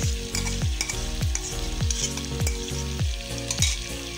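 Mutton and spices sizzling as they fry in an aluminium pressure cooker while yogurt is poured in. Under it runs background music with a deep thumping beat, about three beats every two seconds.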